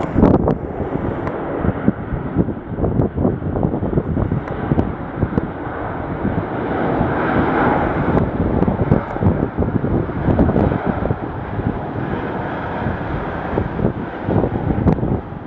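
Wind buffeting the microphone in gusts over a steady rumble, with a brief swell about halfway through.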